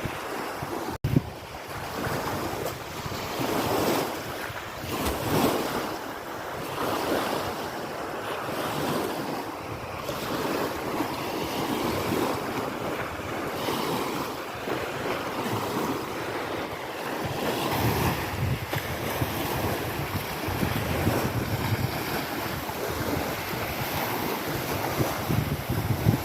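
Wind gusting against the microphone with a rumbling buffet, over small lake waves washing on the shore.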